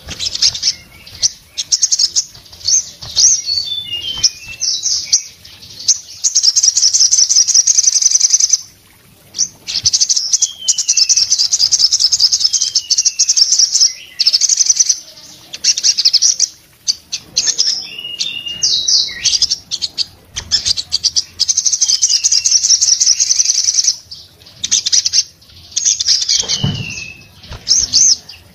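Male olive-backed sunbird (sogon) singing a loud, rapid-fire song of very fast high trills and chatter, with short falling whistles between the runs. A single low thump comes near the end.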